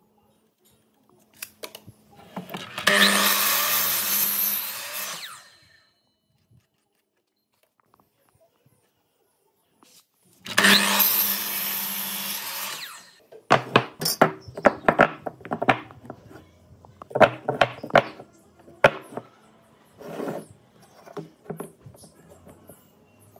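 Electric sliding mitre saw running and cutting through a softwood block twice, each cut lasting about three seconds. Afterwards, a run of short wooden knocks as the cut blocks are handled and set down.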